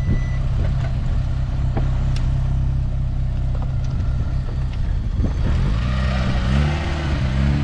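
Peugeot 106 engine idling just after a jump start on a car that has stood for years, then revved up and down several times from about five seconds in to keep it from stalling. A brief high beep sounds at the very start.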